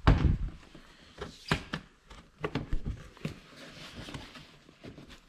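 Knocks and clicks of ATV plastic body panel being pried and wiggled free of its mounting grommets, with a heavier thump at the start and a few sharp knocks after.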